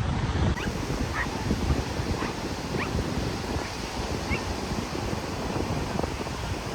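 A dog whimpering: about six short, high rising whines spread over a few seconds, against a steady rush of wind and surf.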